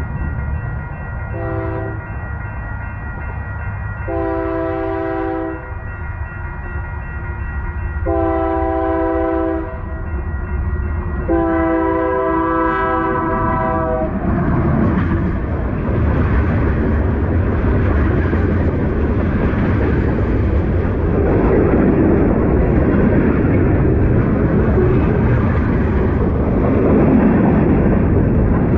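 Union Pacific freight locomotive sounding its horn in four blasts: a short one, two long ones, then a longer one. The diesel locomotive and its freight cars then roll past close by, with a steady rumble of engine and wheels on the rails and some clickety-clack.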